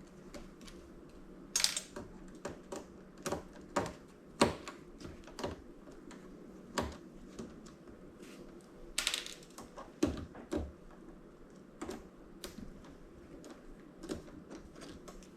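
Irregular small clicks and knocks of hand tools and loose metal and plastic parts as circuit boards are taken out of a small flat-screen TV. Two short scrapes come about one and a half and nine seconds in.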